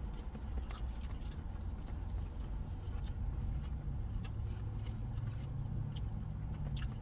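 Low steady rumble of a car idling, heard from inside the cabin, with a faint hum that strengthens about halfway through. Scattered soft clicks of chewing and food wrappers sound over it.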